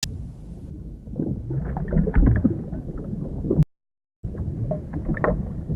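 Underwater water noise: a low, rumbling wash with small clicks and gurgles. It cuts out completely for about half a second roughly two-thirds of the way through, then resumes.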